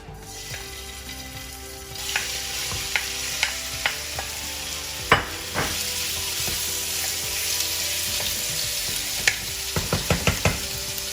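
Raw chicken breast pieces sizzling in hot olive oil in a frying pan. The sizzle jumps up about two seconds in as the chicken hits the pan. Sharp clicks and knocks come now and then as it is moved about, with a quick run of them near the end.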